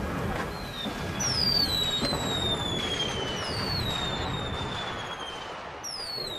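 Fireworks: a dense crackle of small bursts, with several whistles that each fall in pitch, the first about a second in.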